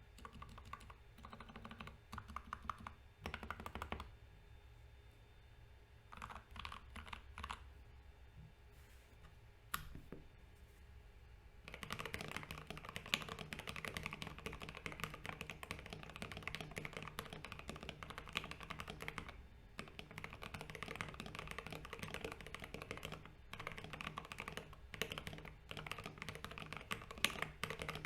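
Typing on an Idobao ID67 custom mechanical keyboard with lubed Gateron Ink Black V2 linear switches and ABS keycaps. Scattered keystrokes at first, then steady fast typing from a little before halfway through.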